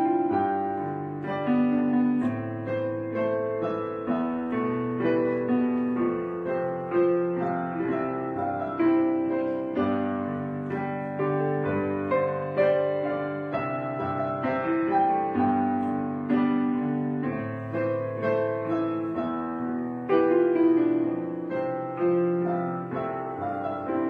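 Background piano music: chords and melody notes struck at a slow, even pace and left to ring out.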